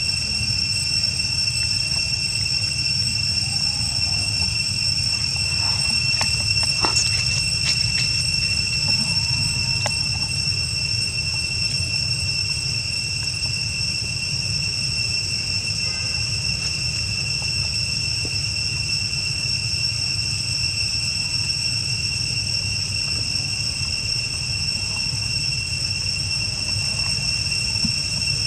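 Steady, high-pitched insect drone holding one shrill pitch, over a low rumble, with a few faint clicks between about six and ten seconds in.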